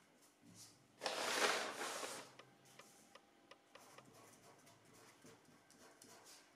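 A large sheet of crumpled kraft pattern paper rustling and crinkling as it is shifted, for about a second starting a second in. Then faint taps and scratches of a pen drawing a line and writing on the paper.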